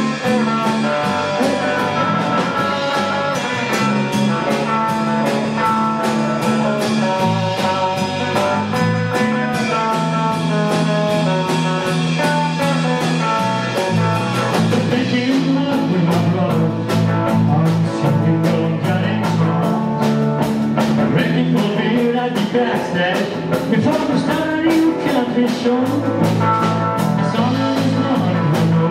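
Live outlaw honky-tonk country band playing: electric guitar, acoustic guitar, electric bass and drum kit over a steady beat.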